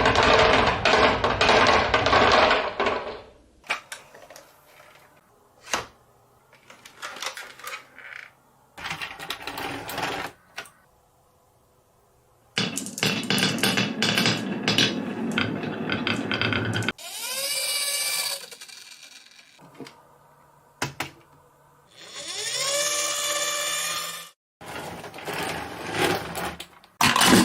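Marbles rolling and clattering down a plastic toy marble-run track in a series of separate bursts. Two stretches of a whirring tone glide in pitch.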